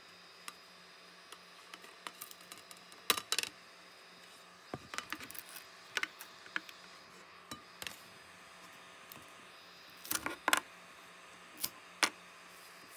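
Clicks, taps and a few sharper knocks from handling a 3D printer's flexible build sheet and the plastic parts printed on it, in irregular clusters, over a faint steady hum.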